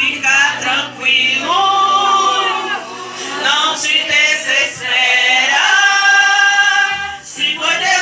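Gospel hymn singing: a voice holding long, wavering notes through sung phrases.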